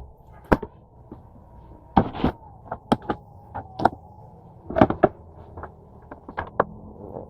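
Handling noises from unpacking a cordless pressure washer's plastic parts: an irregular series of sharp clicks and knocks, the loudest about two, three and five seconds in.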